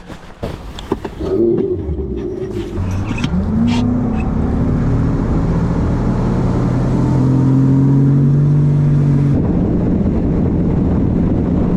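Bass boat's outboard motor speeding up, its pitch rising about three seconds in and then holding steady as the boat runs. A few knocks and clatters come before it.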